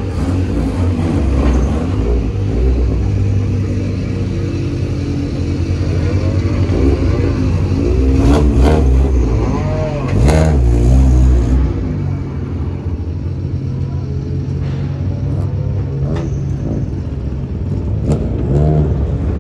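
Modified rally car engines running loudly, blipped so the revs rise and fall several times near the middle. The deep rumble eases off after about twelve seconds.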